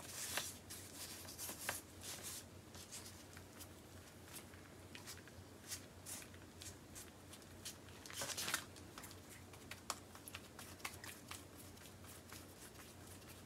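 Hands folding and rolling filled dough on a sheet of baking paper. The paper faintly rustles and crinkles, with a scatter of small crackles and two longer rustles, one at the start and one about eight seconds in.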